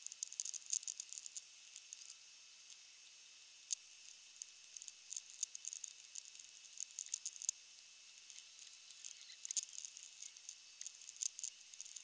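Nitrile-gloved fingers working sticky, resin-soaked chopped carbon fibre into a metal mould: quiet, irregular high-pitched crackles and squishes, in clusters with short pauses between.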